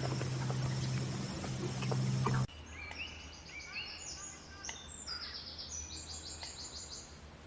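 A loud steady low hum over a noisy background with scattered clicks, which cuts off abruptly about two and a half seconds in. It gives way to a bird's rapid, high-pitched chirping calls, short rising notes repeated in quick runs.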